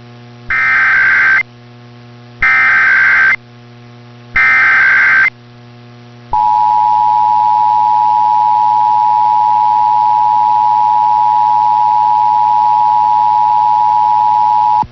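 Emergency Alert System test signals on AM broadcast radio. First come three bursts of SAME header data, each a buzzy digital warble about a second long. Then the two-tone EAS attention signal (853 and 960 Hz sounding together) begins about six seconds in and holds steady for about eight and a half seconds, over a constant low hum.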